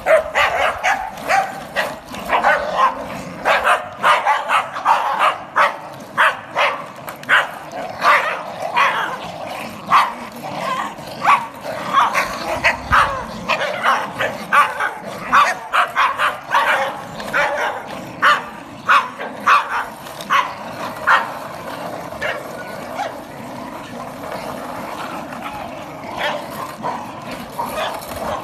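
Several small terriers barking and yapping excitedly, many short, sharp barks in quick succession. The barking is loudest for about the first twenty seconds and then thins out.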